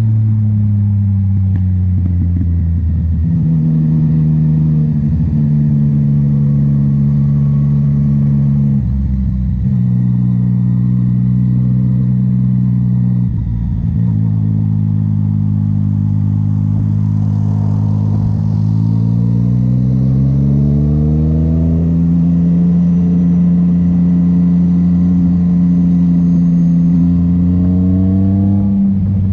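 Yamaha MT-09 inline-three engine and exhaust while riding, running steadily under load with brief breaks for gear changes, and climbing in pitch as it accelerates about two-thirds of the way through.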